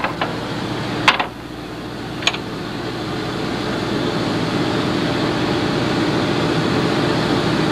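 Boat engine running steadily, a drone that grows gradually louder, with a few sharp clicks in the first couple of seconds.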